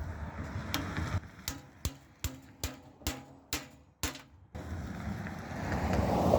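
A hammer striking to drive a trimmed bushing into a mini bike frame's steering head tube: about eight sharp, ringing blows, close to three a second. They stop about four seconds in and give way to a steady rough noise.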